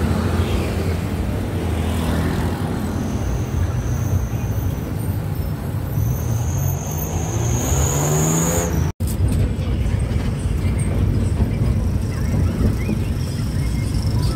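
Vehicle engine running with road and traffic noise, heard from aboard a moving vehicle. Its pitch rises as it speeds up, with a thin high whine over it. The sound drops out for an instant about two-thirds of the way through, then the engine and traffic noise go on.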